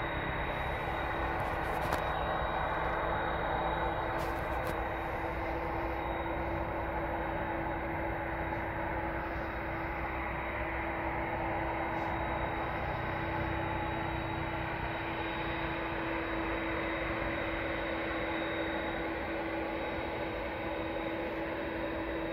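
Jet airliner engines running steadily a long way off: a constant hum with a steady high whine over it.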